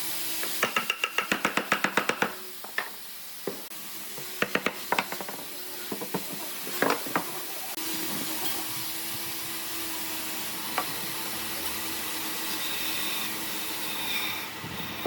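Workshop tool noise: a fast run of sharp clicks, about ten a second, then scattered knocks, then a steady low hum with hiss from about eight seconds in.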